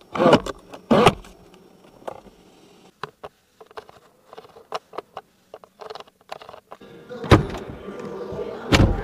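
BYD Leopard 5 controls being worked: two heavy clunks from the centre armrest lid, then a run of light, irregular clicks as the rotary console knob is turned. Near the end come louder thumps from the rear door.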